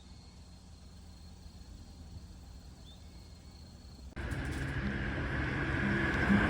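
Faint outdoor ambience with a thin steady high tone and one short chirp, then an abrupt cut about four seconds in to louder background music: sustained low notes that step in pitch over a steady hiss.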